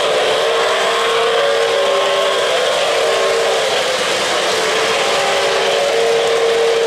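O-gauge model trains rolling on three-rail track, giving a steady rumble and hiss of wheels. Over it, the K-Line New York Central J1 Hudson's Lionel RailSounds steam whistle blows a held chord twice: a long blast from about half a second in that lasts some three seconds, and another starting near the end.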